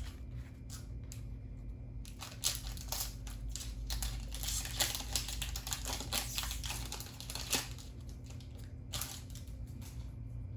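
A trading-card booster pack's wrapper crinkling and being torn open, a dense run of short crackles, with cards handled.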